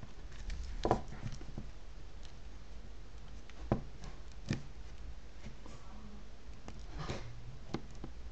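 Plastic shrink wrap on a CD album being slit open with a blade: scattered small crinkles and clicks, the sharpest about a second in and near the middle, over a steady low hum.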